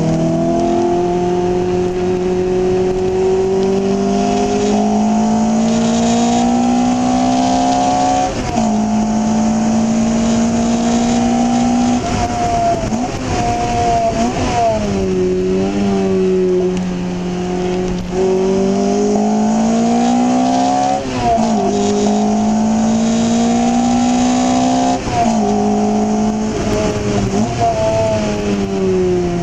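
Lotus Elise's four-cylinder engine heard from inside the cabin. Its pitch climbs steadily under acceleration and drops sharply several times at gear changes and lifts off the throttle.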